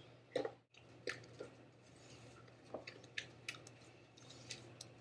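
Faint, irregular clicks and scrapes of kitchen utensils and containers as brownie batter is made up from a box mix, with small wet, squishy sounds.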